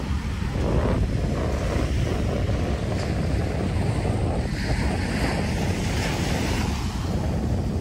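Surf breaking and washing on a beach, with steady wind noise on the microphone.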